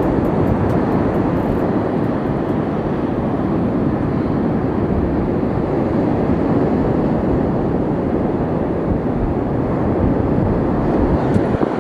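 Steady rush of wind buffeting the microphone, mixed with the wash of surf, with a few faint ticks in the first couple of seconds.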